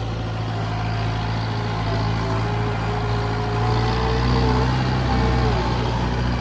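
Mowing tractor's engine running steadily under load as it climbs a steep hill, with a whining tone that drops in pitch about five seconds in.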